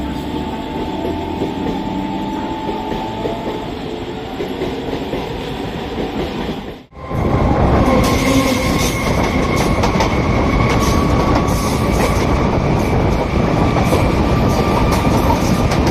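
Indian suburban EMU electric train starting to pull out with a moderate rumble. After a cut about seven seconds in, a much louder close pass of an EMU follows, with a steady high whine over rapid clatter of wheels on rail joints.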